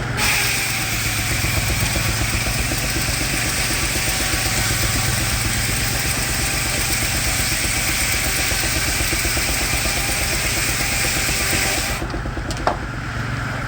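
Frick sawmill's circular head saw cutting through a log, a dense whining rip that stops abruptly about twelve seconds in as the blade leaves the cut, then a single sharp knock. Beneath it, the steam engine driving the mill keeps up a steady rhythmic exhaust beat.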